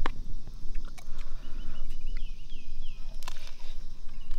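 A bird calling in a quick run of short, repeated whistled notes about a second and a half in, with a few sharp clicks of a metal spoon against a plastic food box.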